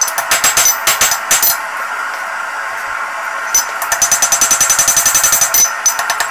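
A hand hammer striking red-hot knife steel on an anvil, blows coming in quick succession in two runs: one over the first second and a half, and another from about three and a half seconds in. Background music plays throughout.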